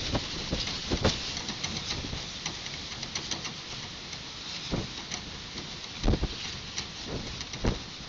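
Strong gusty wind of about 28 mph buffeting the microphone, with a steady hiss of rain and many small raindrop ticks. A few heavy low thumps from gusts, the strongest about six seconds in.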